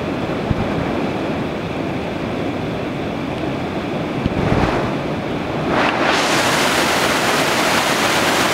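River rapids rushing over rock ledges in a steady wash of whitewater noise. About six seconds in, the sound turns suddenly brighter and hissier.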